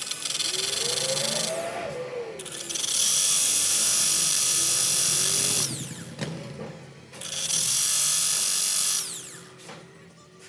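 A handheld power tool with a coarse abrasive grinding on a folding knife in three bursts, a whining spin with grinding noise, each burst winding down as the tool is let off.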